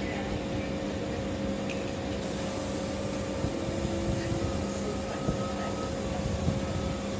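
Steady hum and low rumble of trains standing in a railway station, with several constant tones like running ventilation or auxiliary equipment.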